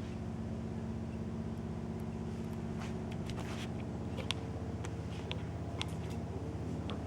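Washing machine running with a steady low hum, with light clicks and knocks scattered through from about three seconds in.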